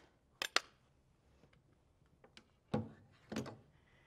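A metal fork tapping twice against the bowl of an electric coffee grinder, knocking out the last of the ground flaxseed, followed near the end by two duller knocks about half a second apart.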